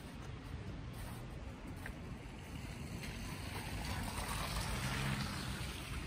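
City street traffic rumble, with a vehicle's tyres hissing through wet slush as it passes, swelling to a peak about five seconds in.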